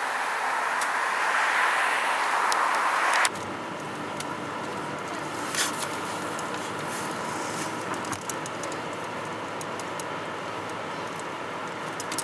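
A rushing hiss that swells for about three seconds and cuts off abruptly, then the steady road and engine noise heard inside a moving car, with a few faint clicks.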